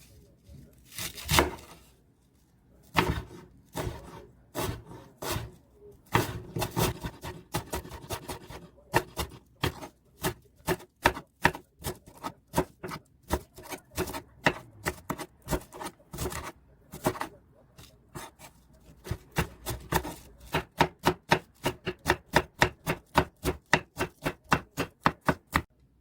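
Kitchen knife chopping food on a cutting board. The strokes are sharp and irregular at first, then settle into a steady run of about three strokes a second over the last several seconds.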